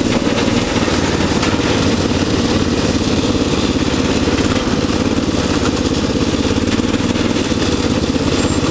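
Riding lawnmower engine running steadily at a fast idle as the mower drives and turns; the idle is set too high.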